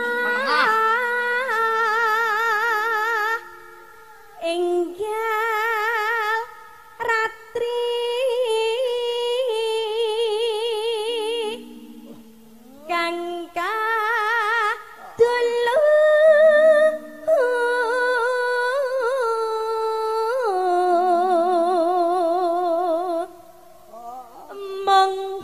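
A sinden, a Javanese female gamelan singer, singing through a microphone in long held notes with heavy vibrato, sliding between pitches. Short steady lower notes sound beneath the voice at times, and the singing tails off near the end.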